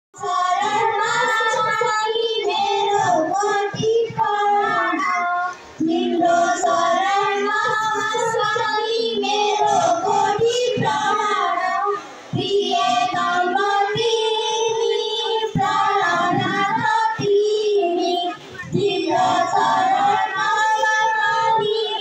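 Children singing a devotional vandana into microphones, read from song sheets, in sung phrases with a brief pause between each.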